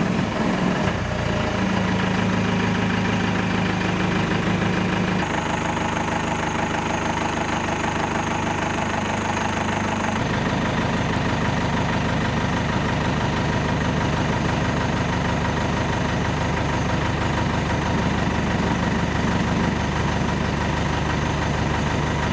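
Safari jeep's engine idling steadily, its tone shifting abruptly twice, about five and ten seconds in.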